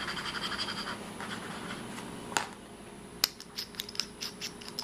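Fountain pen nib scratching across paper while ink has not yet started to flow, then a sharp click and a quick run of small clicks as the metal pen is handled.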